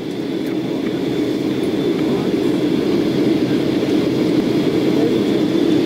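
Cabin noise inside a Boeing 737-600 airliner descending on approach: the steady roar of its CFM56 jet engines and the airflow over the fuselage, with a thin steady high whine above it. It grows slowly louder over the first couple of seconds.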